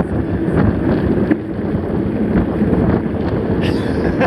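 Wind buffeting the microphone of a camera on a mountain bike in motion: a loud, steady low rumble with faint scattered clicks.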